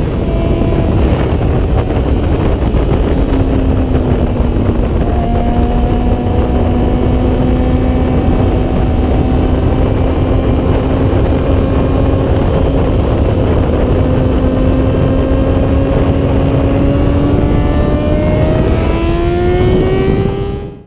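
2005 Yamaha R6's inline-four engine running at track speed, with heavy wind rushing over the microphone. The engine note holds fairly steady, then rises in pitch over the last couple of seconds as the bike accelerates.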